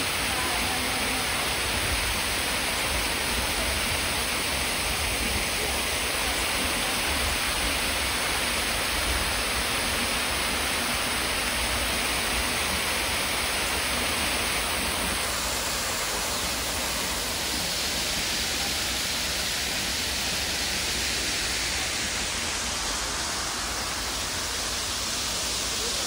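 Steady rushing of water from an artificial waterfall, many thin streams falling down a rock wall into a pond. About halfway through, the sound turns to a brighter, hissier spray of water jets.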